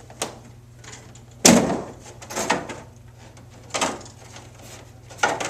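Knocks and clatter of a machine's front panel being lifted up and off its housing: a loud thump about a second and a half in, with several smaller knocks after.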